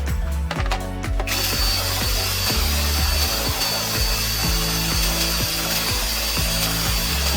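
Background music with a stepping bass line and a regular beat. About a second in, a power tool starts running with a steady high whine over the music.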